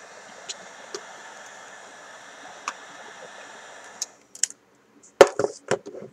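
Heat gun blowing with a steady fan rush, cutting off abruptly about four seconds in. A quick run of sharp knocks and clicks follows, the loudest about five seconds in.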